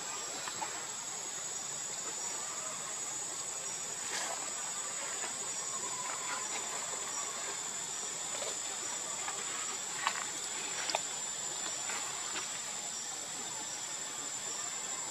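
Steady high-pitched drone of insects, unbroken throughout, with a few faint short clicks about four seconds in and again around ten and eleven seconds.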